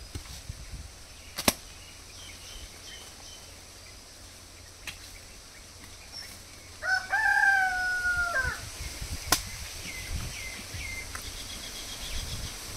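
A rooster crows once about halfway through, a single long crow lasting under two seconds. Around it, a short-handled hoe chops into soil with dull thuds, and there are a few sharp knocks.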